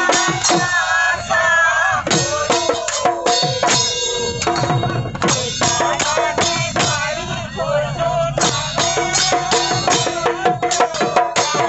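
A laced barrel-shaped hand drum played with the bare hands in quick strokes, with a group of people singing along.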